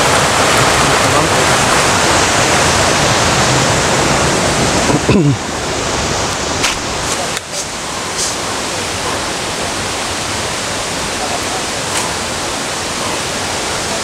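Steady rushing of a large waterfall, an even wash of falling water that gets a little quieter about five seconds in, with a few faint knocks after.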